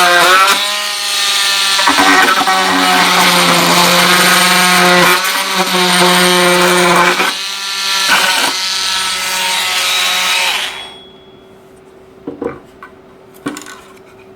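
Milwaukee M12 oscillating multi-tool with a wood plunge-cut blade cutting through thin plastic: a loud, steady buzz with a harsh rasp, dipping briefly several times as the blade bites. It stops about three-quarters of the way through, followed by a few light knocks.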